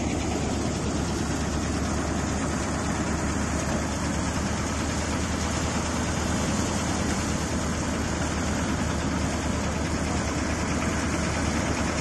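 Tractor-driven drum threshing machine running steadily as bundles of cut crop are fed in. The tractor engine's low drone mixes with the whir of the threshing drum, unchanging throughout.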